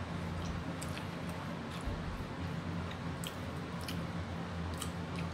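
Steady low hum of a kitchen vent fan, with faint chewing and scattered small clicks of someone eating by hand.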